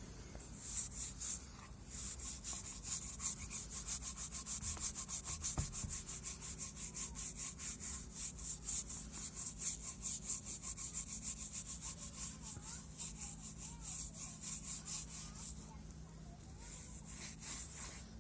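A hand tool worked back and forth on wood in quick, even strokes, like hand sawing or sanding. The strokes start about a second in and die away near the end.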